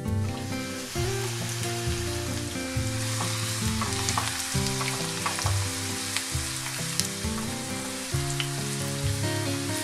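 Grated carrots and chopped onions sizzling in hot oil in a frying pan, stirred with a spatula. The sizzle starts suddenly as the carrots go in, then carries on with small crackles and pops.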